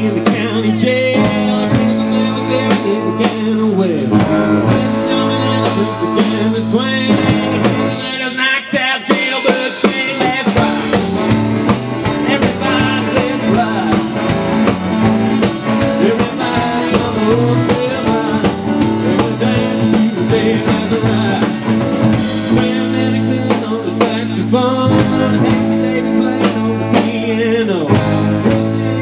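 Live blues-rock band playing: drum kit, electric guitar and saxophone with a male lead vocal.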